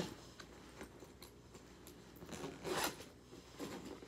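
Zipper on a sports gear bag being pulled, one short zip about two and a half seconds in, with a smaller rasp just after.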